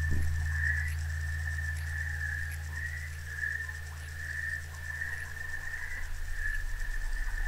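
A steady high-pitched pulsing call, swelling about twice a second, over a low hum that fades away near the end.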